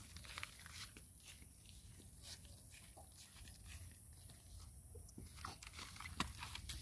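Quiet outdoor ambience with a steady faint high hiss and scattered soft clicks and rustles of children moving about on grass, with one sharper tick about six seconds in.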